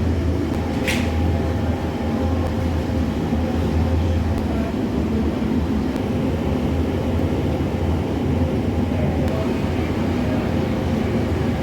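Steady machine rumble and hum of bakery equipment, with a brief hiss about a second in.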